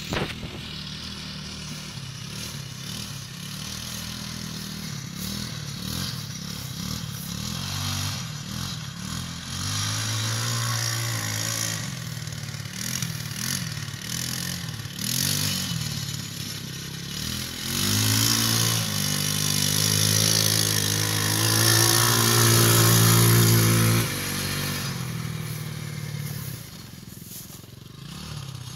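TaoTao 150cc four-stroke ATV engine running under way, revving up and easing off several times. The longest and loudest pull comes past the middle and drops back suddenly.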